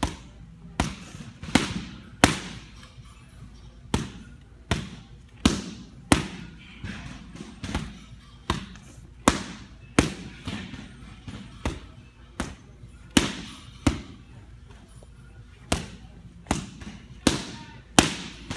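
Boxing gloves smacking into focus mitts: a steady run of sharp punches, about one every second or less, with two short pauses and a brief echo after each hit.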